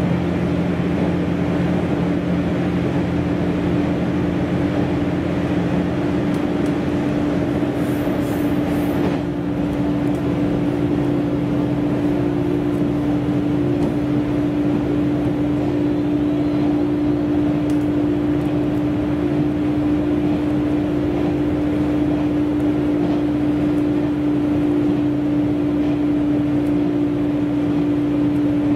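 Tosa Kuroshio Railway diesel railcar running at speed, heard from inside the carriage: a steady engine drone with a held tone over the rush of wheels on rail.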